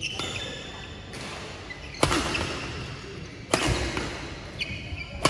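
Badminton rally: three sharp cracks of rackets striking a shuttlecock, near the start, about two seconds in and about three and a half seconds in. Short high squeaks of court shoes come between the hits.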